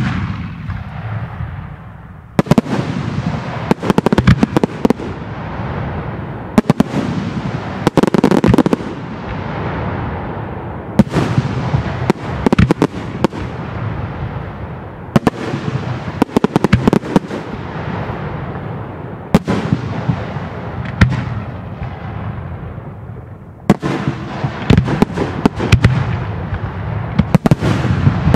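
Fireworks display: a loud bang right at the start, then a continuous barrage of explosions and sharp cracks, with a fresh volley of bangs every two to four seconds.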